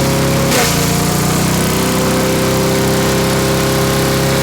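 Craftsman wood chipper-shredder's small gas engine running steadily. About half a second in, its pitch drops sharply with a burst of noise as it takes a load, then it settles back to steady running.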